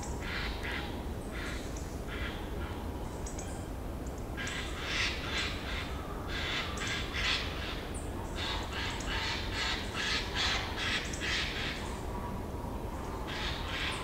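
Eurasian jay giving harsh, raspy calls in several runs of quick short notes, with pauses between the runs.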